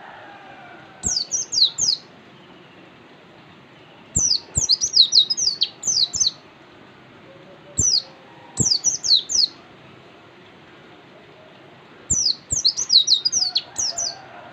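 Pleci (white-eye) songbird singing: four bursts of fast, high, falling chirps, each one to two seconds long and a few seconds apart.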